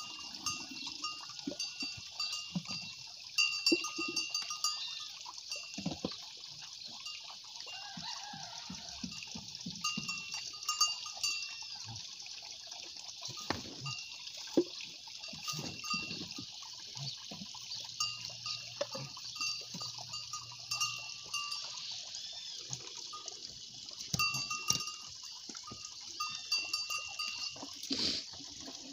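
A calf suckling at a cow's udder: irregular wet slurping and bumping sounds. A constant layer of repeated high chirping runs underneath.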